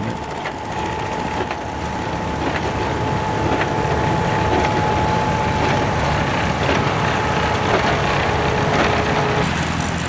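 Vintage Massey Harris 701 baler's own independent engine running steadily alongside its tractor, with a steady whine and a faint regular knock about once a second.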